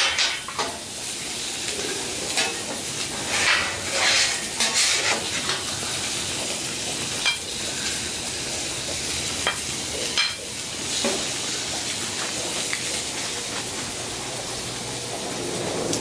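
Filet mignon sizzling on a hot flat-top griddle, a steady hiss. Over it, a metal spatula scrapes and clinks across the griddle surface in the first few seconds, with a few single clinks later.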